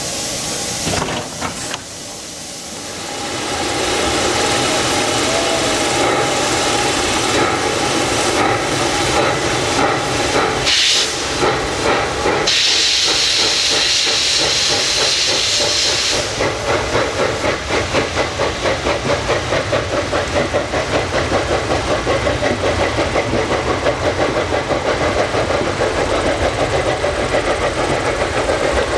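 Saxon IK class narrow-gauge steam locomotive No. 54 getting its train under way. There are a few knocks early, then steady steam hiss with a loud burst of hiss about halfway, then an even chuffing of exhaust beats, about three a second.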